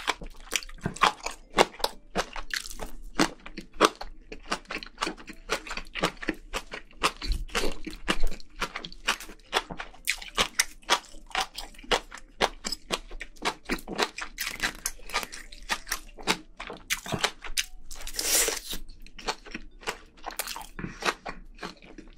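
A person chewing spicy braised seafood and rice close to the microphone: quick, irregular crunches and wet mouth sounds, several a second.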